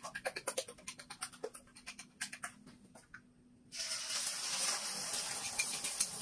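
Chopsticks beating eggs in a bowl, rapid clicks about six a second. A little under four seconds in, the beaten egg goes into hot oil in a wok and sizzles steadily, louder than the beating.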